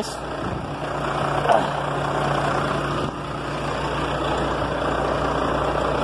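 Heavy truck's diesel engine idling: a steady, dense running noise with a low hum.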